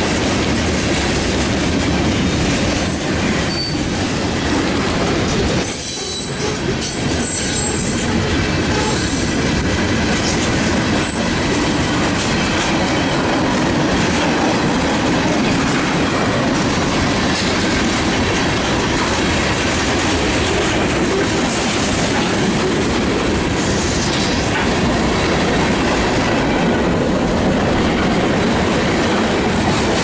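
Freight train cars rolling past close by: a steady rumble and clatter of steel wheels on the rails.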